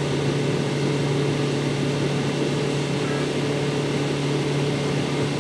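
Boat motor running steadily under way: an even, loud drone over a rushing noise.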